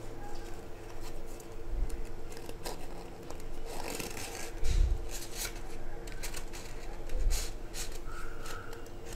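Stiff folded paper rustling and crinkling as a rolled-paper stick is pushed through the centre hole of a pleated paper umbrella canopy, with three soft low thumps of handling. A faint steady hum sits underneath.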